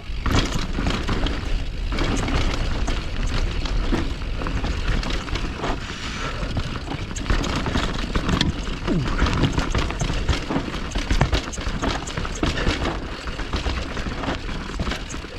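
Mountain bike riding down a rough trail: steady wind and tyre noise with frequent rattles and knocks from the bike over bumps.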